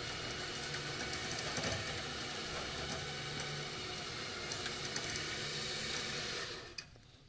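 An engine running steadily, cutting off abruptly near the end.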